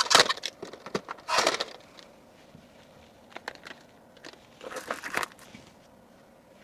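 Packaging rustling and crinkling as small items are handled and packed into a box, in four short bursts.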